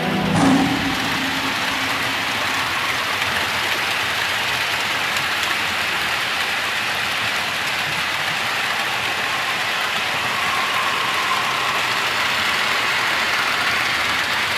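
Model trains running on an OO gauge layout: a steady whirring rumble of locomotive motors and wheels rolling over the track.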